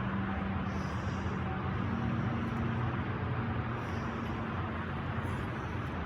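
A car running steadily: a low engine hum under an even rushing noise.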